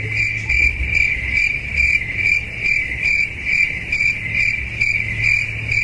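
Cricket chirping in a steady, even rhythm of about two and a half chirps a second, each chirp a high, thin trill.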